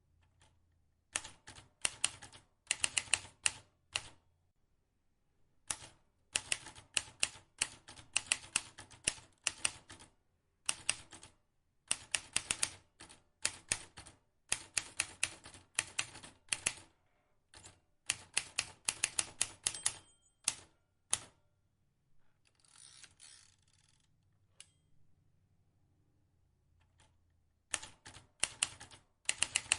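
Vintage manual typewriter being typed on: rapid runs of sharp key strikes in bursts of a few seconds, broken by short pauses and a longer lull before the typing resumes near the end.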